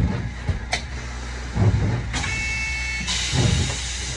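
Cab interior of a 1928 Kawasaki-built wooden Hankai tram: a steady low hum with a few low rumbles, a brief two-pitched tone about two seconds in, then a hiss from about three seconds in.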